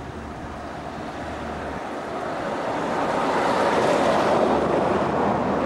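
Twin-engine jet airliner's engines spooling up to takeoff thrust at the start of the takeoff roll: a broad rushing roar that grows louder over the first few seconds and then holds.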